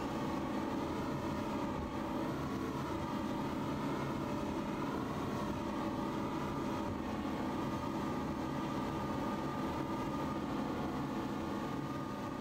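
Motorboat engine running steadily at speed, with water rushing in the wake.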